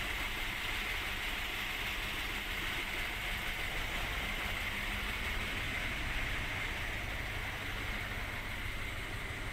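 Large truck diesel engine idling steadily, a low even rumble with a steady high hum above it.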